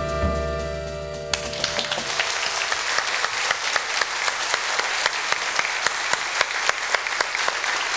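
A small band's final held chord rings out and stops within the first two seconds. A studio audience then applauds steadily, with many individual claps.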